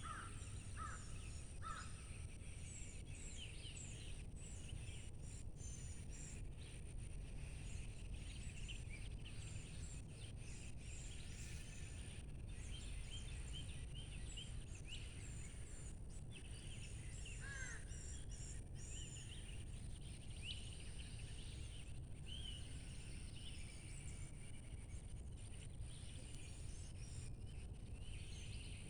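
Several small birds chirping and trilling over a steady low rumble, with a constant thin high tone. A few lower calls repeat about twice a second at the very start, and one call falls in pitch about 17 seconds in.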